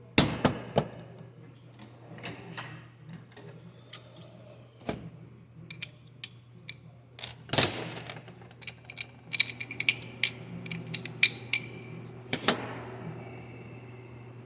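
Irregular clicks, taps and light rattles of small plastic gears and metal shafts being pulled out of the reduction gearbox of a GM coolant flow control valve's electric actuator and handled, over a steady low hum.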